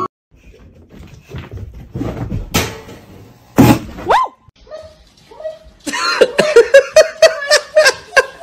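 Scattered knocks and thumps, then from about six seconds in a dog barking in a fast run of short, high yaps.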